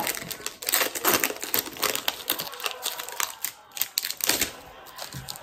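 Foil Pokémon card booster pack wrapper crinkling and tearing as it is opened by hand, a fast run of crackles and ticks that thins out near the end.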